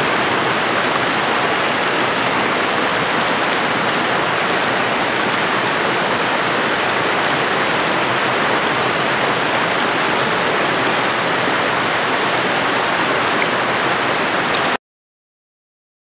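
Water rushing steadily over small rocky cascades of a mountain stream, a continuous rush that cuts off suddenly near the end.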